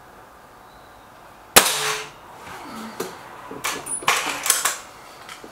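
A single shot from a break-barrel air rifle, plausibly the Stoeger RX20 S2 Suppressor: a sharp crack about a second and a half in that rings briefly. About three seconds in comes a run of short clicks and clunks.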